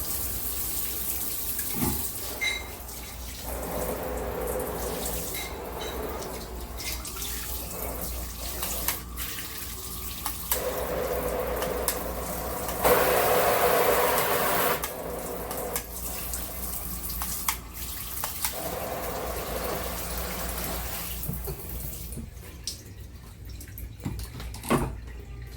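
Water spraying from a filtered handheld shower head, rising and falling in strength and loudest about halfway through, with a few light knocks.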